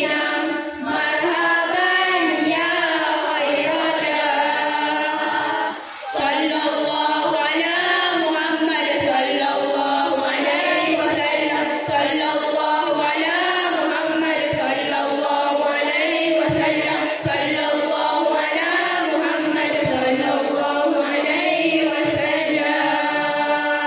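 A group of children singing a chant-like melody together, with a brief pause about six seconds in.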